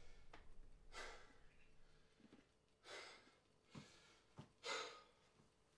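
Near silence broken by three faint sighs or exhaled breaths from a man, about two seconds apart, with a couple of small soft ticks between the last two.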